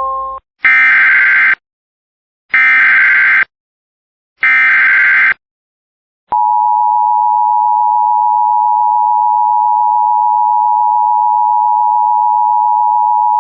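Emergency Alert System header: three short bursts of SAME digital data tones, about two seconds apart. About six seconds in comes the steady two-tone EAS attention signal, which holds at an even level. Together they announce a new alert, here a flash flood warning.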